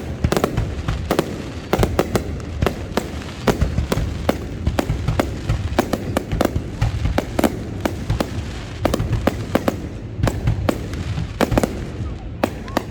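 Fireworks going off in a continuous barrage, many sharp bangs and pops a second over a steady low rumble from the bursting shells.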